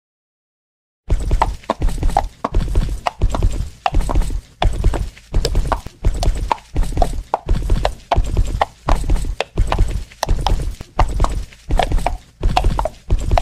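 Sound effect of horse hooves clip-clopping at a walk, a steady, even beat of roughly two strikes a second that starts about a second in.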